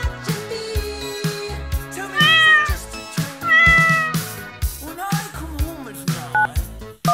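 A cat meowing twice, loud and drawn out, over background music with a steady beat. Short phone keypad tones come in near the end.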